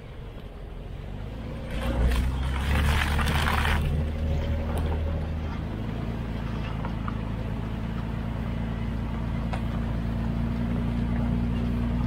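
Off-road truck driving slowly over a gravel dirt trail: a loud burst of tyre-on-gravel crunch for about two seconds near the start, then a steady engine drone that grows slowly louder and rises a little in pitch.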